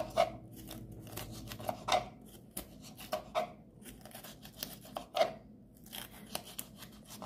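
Knife slicing a yellow bell pepper into strips on a cutting board: irregular taps of the blade against the board as it cuts through, a few of them louder.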